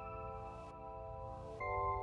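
Background music of held chords, moving to a new chord near the end.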